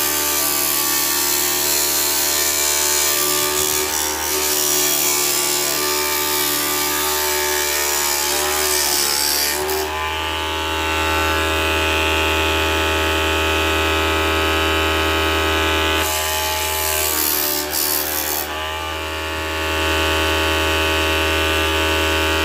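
Homemade 5-inch disc sander driven by a 775 DC motor, running with a steady whine while a board's edge is pressed against the sandpaper disc, giving a rough sanding noise for about the first ten seconds. The board is then lifted off and the motor runs freely with a cleaner whine, with another short sanding pass about sixteen seconds in.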